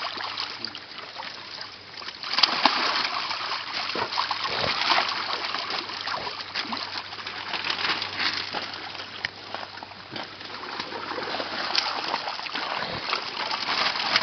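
Koi splashing in a holding tank, irregular splashes and sloshing of water, with a louder splash about two and a half seconds in.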